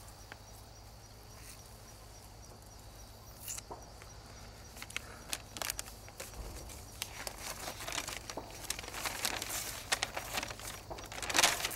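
A large paper map being unfolded and handled, crinkling in irregular crackles that begin a few seconds in and grow busier in the second half.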